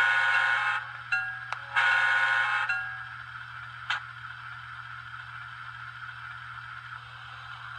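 Sound decoder in an N-scale Kato F7 diesel locomotive model playing through its tiny speaker: two blasts of the air horn, each about a second long, then the steady sound of the diesel engine running.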